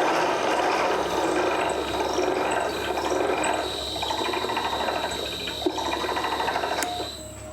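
HTC 420 triple-head floor grinder running unloaded after its speed control has been turned up, a steady machine noise with a thin high whine entering about three seconds in. The sound falls away near the end.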